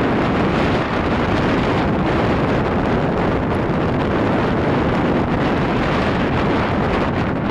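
Strong storm wind buffeting the camera microphone: a loud, steady rushing roar with a low, fluttering rumble.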